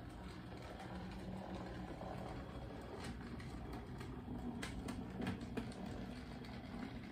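Model train running along the layout's track: a steady low motor hum and wheel rumble that grows louder, with scattered sharp clicks from about halfway in.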